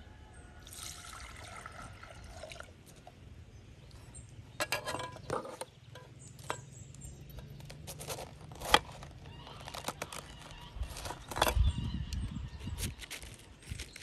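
Water poured from a jug for about two seconds, then a knife cutting through a red cabbage in a series of crisp crunches and clicks, one sharp click louder than the rest.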